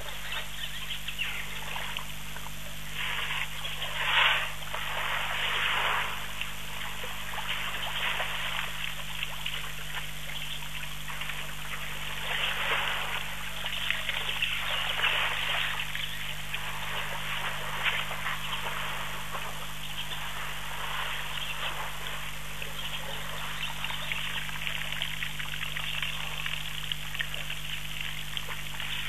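Elephant bulls drinking in a waterhole: water splashing and trickling as it runs from their trunks, in uneven swells with the strongest about four seconds in. A steady low hum lies underneath.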